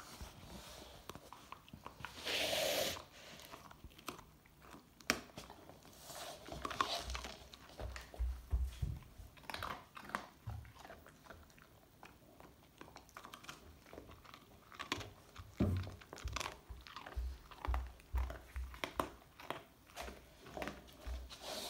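Border collie crunching and chewing a crumbly dog birthday cake, with irregular crunches and clicks of its teeth. A brief, louder rush of noise comes about two and a half seconds in.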